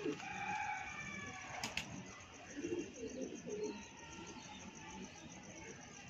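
Faint pigeon sounds: soft cooing and wing flapping, with one sharp click a little under two seconds in.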